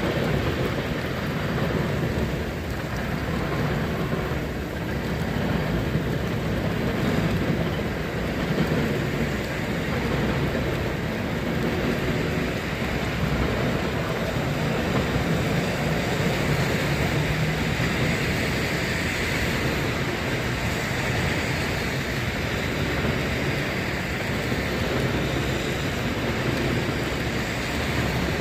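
Steady rain in a thunderstorm, with a low rumble underneath and cars passing on the wet road.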